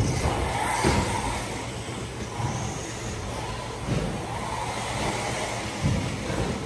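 Electric RC cars running on a carpet track: faint motor whine rising and falling with the throttle, and tyre noise. Dull thumps come about a second in, at about four seconds and at about six seconds, as the cars land off jumps.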